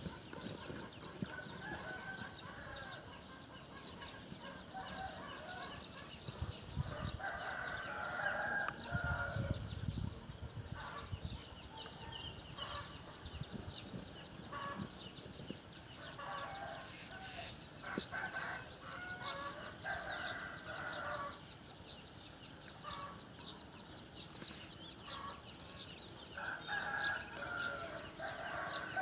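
A rooster crowing several times, each crow lasting a second or two. Short high chirps sound throughout.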